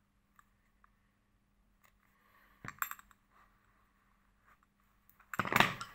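Metal pliers clicking and clinking as they grip and pull a string through a mohair cinch: a few light clicks, two sharper clicks about halfway, and a louder rustling scrape near the end.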